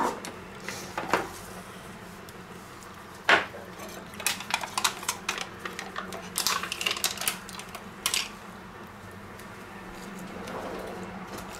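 Kitchenware being handled on a wooden cutting board beside a stainless steel mixing bowl: one sharp knock about three seconds in, then a run of small clicks and taps.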